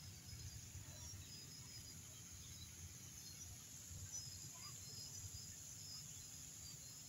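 Faint outdoor evening ambience: a low steady rumble under a high hiss, with scattered brief faint high chirps.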